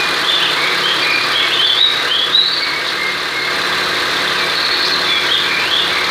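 Mitsubishi Lancer's air-conditioning compressor running with the engine idling, a steady noisy growl with a wavering high whine coming and going, which the mechanic puts down to a failed bearing inside the compressor.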